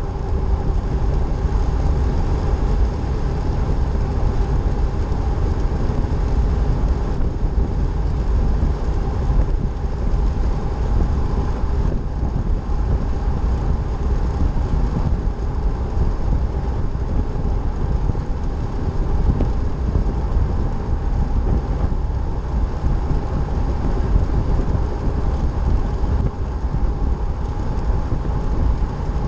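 Steady road and wind noise from a vehicle driving along a paved highway: a constant low rumble with a faint hum from the drivetrain and no change in speed.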